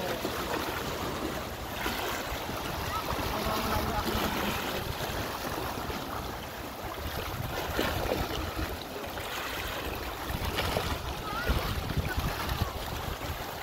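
Small sea waves washing and splashing against a rocky shore, with wind rumbling on the microphone.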